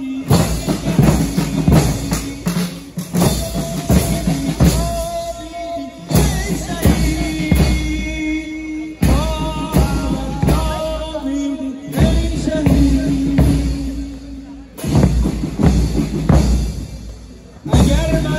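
Large bass drum beaten in a steady rhythm under a voice singing a mourning lament (noha) over loudspeakers. The sound breaks off and restarts abruptly several times.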